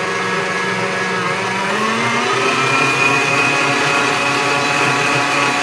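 Electric mixer whisking egg whites and sugar into meringue, its motor whining steadily. The whine rises in pitch about two seconds in as the mixer speeds up to full speed.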